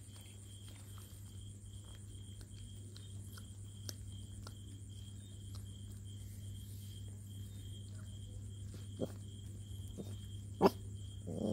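Puppies eating cooked rice: soft scattered chewing and smacking clicks, with a sharp louder click near the end, over a steady low hum. A puppy begins a short whine right at the end.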